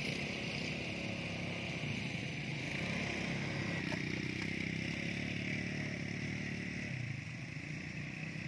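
ATV (quad bike) engines running as the machines move off and drive around a dirt course, a steady engine hum whose pitch shifts with the throttle and eases off about seven seconds in.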